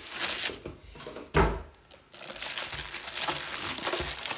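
Plastic wrap crinkling and rustling against styrofoam packing as a heavy metal cross-slide worktable is handled and lifted out of its foam tray, with a thump about a second and a half in.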